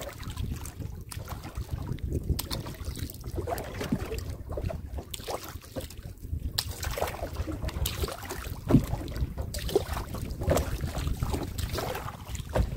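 Wind rumbling on the microphone over splashing water, with scattered short knocks and splashes.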